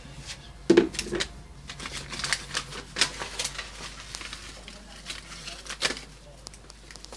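Irregular light clicks and taps of handling, with a few louder knocks about a second in.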